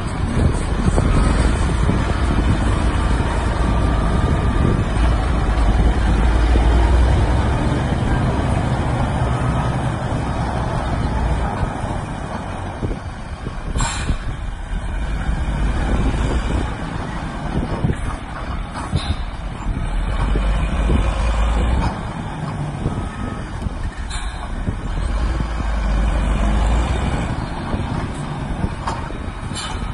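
Caterpillar 14H motor grader's diesel engine running under load as the blade pushes gravel, a steady low rumble, with a few short sharp clicks spaced several seconds apart.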